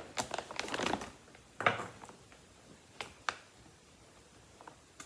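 Plastic feed-sack material crinkling and rustling as it is handled and folded: a dense run of crackles in the first second, a short rustle a little later, then a few separate clicks.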